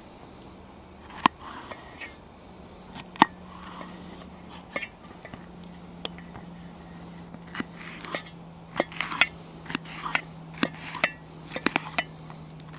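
Knife slicing a red pepper on a stainless steel plate: sharp clicks and taps of the blade striking the plate, with some crunching of the pepper, a few at first and then coming thick and fast in the second half. A faint low steady hum runs underneath.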